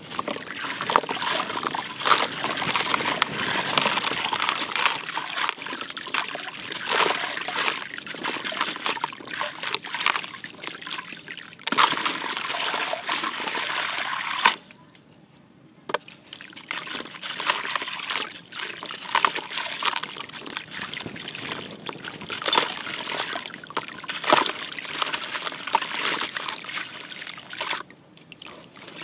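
Wet, gritty concrete crumbling in the hands and showering into a bucket of water: a steady patter and splash of falling grit with small crackles as lumps break. It drops out for about a second midway.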